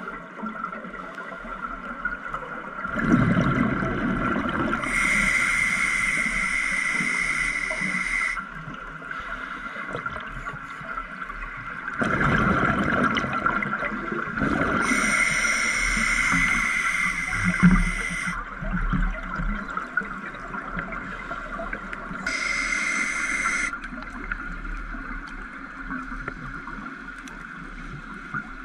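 Scuba regulator breathing heard underwater: bubbly gurgling exhalations alternating with hissing breaths drawn through the regulator, about three breath cycles over a steady faint high tone.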